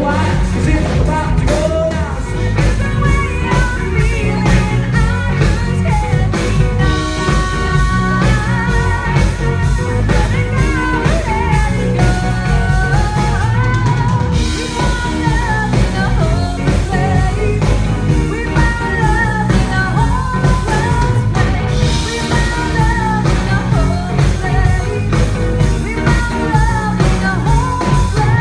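Live rock band playing: singing over drum kit, electric guitars and keyboards, heard from the audience in the hall.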